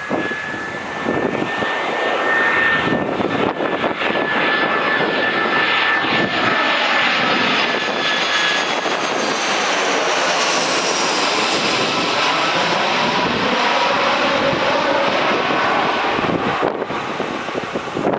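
Airbus A320-200 airliner's jet engines on its landing approach, a loud steady rush with a high whine, the sound sweeping and changing in pitch as the plane passes about ten seconds in.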